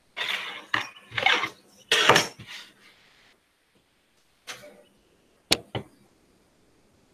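A pencil scratching on paper in three quick strokes along a steel ruler, then a few sharp clicks and knocks as the metal ruler is moved and set down.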